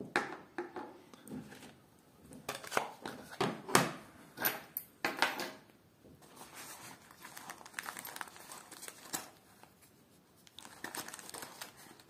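Crinkling and rustling of small kit being handled on a table, in irregular bursts with a few sharper clicks, busiest in the first half, easing off, then picking up again near the end.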